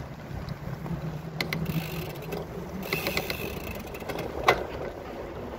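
Bicycle rolling over paving stones, with wind noise on the microphone and scattered clicks and rattles from the bike over the paving; one sharp knock about four and a half seconds in is the loudest.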